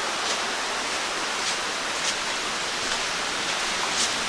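Steady rush of flowing water from a rain-swollen stream and small waterfall, with a few faint crunches.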